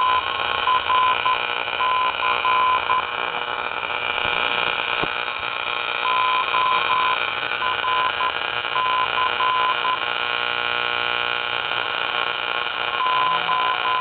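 Morse code (CW) signal received on an AM radio at the bottom of the broadcast band: a single steady tone keyed on and off in dots and dashes over a constant hiss of static. The same short group (---/.-./-.-.) repeats about every seven seconds, which the uploader takes for a beacon, perhaps an airport's.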